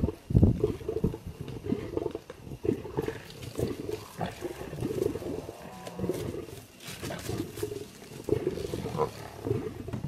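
Several lions growling and snarling: a continuous run of short, rough, low growls, with the loudest snarl right at the start.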